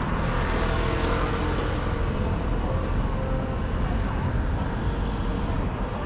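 City street traffic: a steady low rumble of cars on the road, a little louder in the first couple of seconds as a vehicle goes by.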